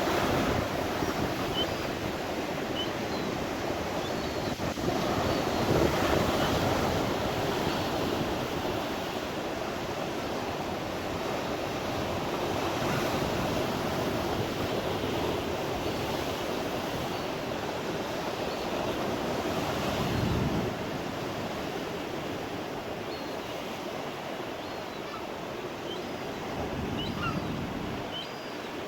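Rough sea surf breaking and washing in a continuous rush, swelling about six seconds in, again around twenty seconds and near the end, with wind buffeting the microphone. Faint short high calls are scattered over the surf.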